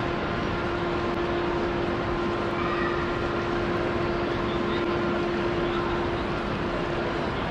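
Ambience of a busy railway station concourse: a steady wash of hall noise with a steady hum that cuts out near the end.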